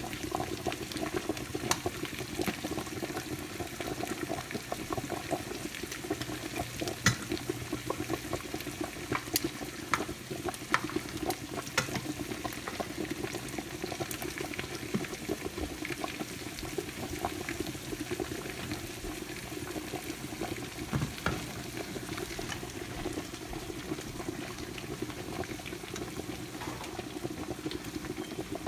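Sauce and sausage pans simmering and sizzling on the stove, a steady bubbling hiss, with scattered sharp clicks of tongs and a spoon knocking against the pans, more of them in the first half.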